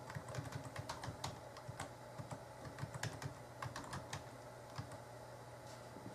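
Computer keyboard typing, a quick irregular run of key clicks as a password is entered. The clicks thin out to a few stray ones after about four seconds.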